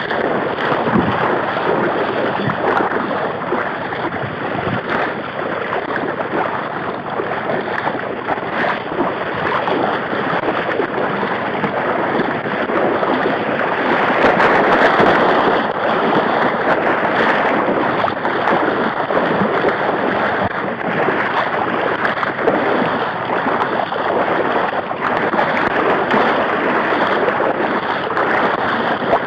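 Continuous sloshing and splashing of water from wading through a shallow flooded marsh, with dogs splashing through the water. It grows a little louder for a few seconds around the middle.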